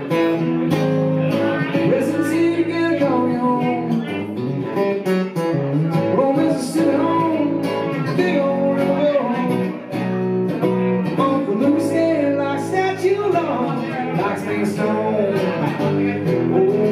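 Solo electric guitar played live, an instrumental stretch of a song with strummed chords and single-note lines.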